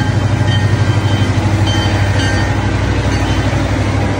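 CN freight train's diesel road-switcher locomotives passing close by: a loud, steady low engine drone with a fast throbbing pulse.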